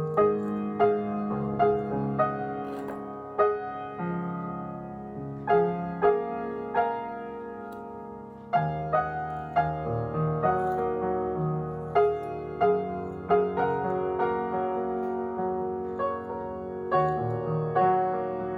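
Gentle solo piano music: struck notes and chords that ring out and fade, about one a second, with a brief lull about eight seconds in.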